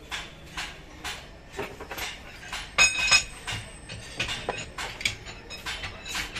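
Steel rubber-molding mold being handled on a metal workbench: a run of short metallic clinks and scrapes, with two louder ringing metal strikes about three seconds in.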